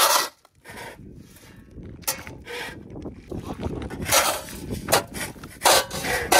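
Half a dozen irregular scraping strokes of grain being scraped over asphalt, with a quiet gap about a second in.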